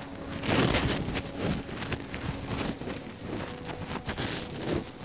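Tussar silk sari rustling in uneven bursts as it is handled and spread out.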